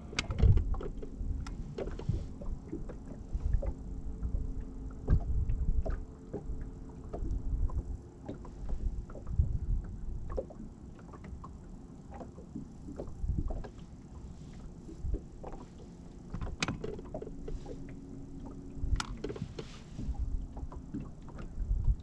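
Water slapping against a bass boat's hull in irregular low thumps and knocks. A bow-mounted electric trolling motor hums steadily for a few seconds near the start and again about two-thirds of the way through.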